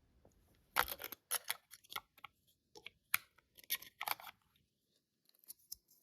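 Quiet, irregular small clicks and plastic rustles of a new RAM stick being handled and fitted into the laptop's memory slot, thickest from about a second in to about four seconds in.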